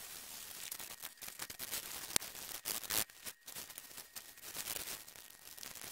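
Gloved hands rubbing and squeezing a small piece of green foam right against a handheld recorder's microphones, making close, scratchy crackles. There is one sharp click a little after two seconds in and a denser crunchy stretch just before three seconds.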